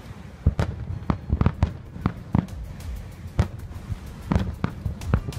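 Aerial fireworks shells bursting in quick succession: a string of sharp bangs and booms at uneven intervals, a few each second.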